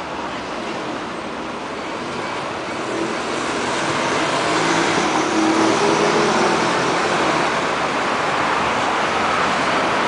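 Street traffic: cars and a city bus driving past, the sound swelling louder about halfway through as the bus comes by.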